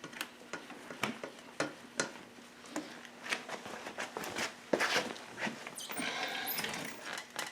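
Scattered light clicks and taps of hand tools and metal parts being handled while a coolant line is worked off an engine, with a denser stretch of rattling and scraping about five to seven seconds in.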